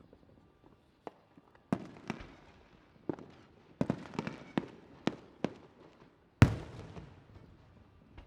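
Fireworks going off: a string of about ten sharp bangs over some four seconds, each fading out in a rumbling tail. The loudest bang comes about six seconds in.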